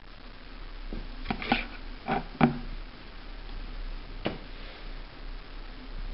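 Cat paws knocking and scratching on a cardboard box: a cluster of short knocks and scrapes between about one and two and a half seconds in, then one more about four seconds in.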